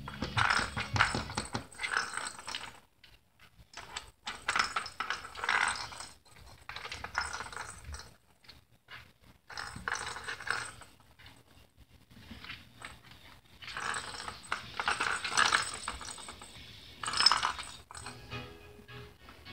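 A ball rolling and rattling around inside a plastic circular track toy as a kitten bats at it, in clattering bursts a few seconds long with short pauses between.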